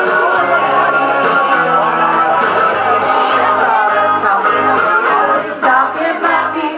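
Guitar-led karaoke backing track playing through a bar's sound system, with two women singing along into microphones.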